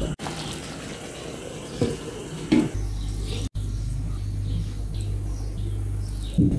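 Chicken fillets and pomegranate sauce simmering in a frying pan, a steady wet bubbling, with a few sharp knocks of a wooden spatula against the pan.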